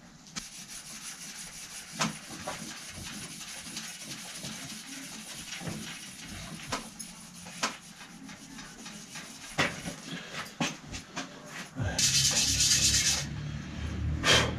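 Hand-work on a bicycle: scattered clicks, taps and rubbing of tools and bike parts, then about twelve seconds in a loud hiss lasting a second or so, followed by a low rumble.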